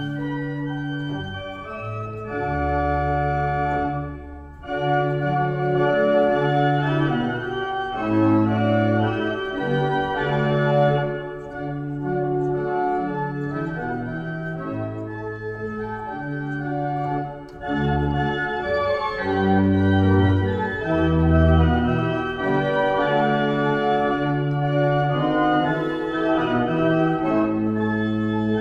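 Wegenstein pipe organ played in sustained chords over held bass notes, with two brief breaks between phrases.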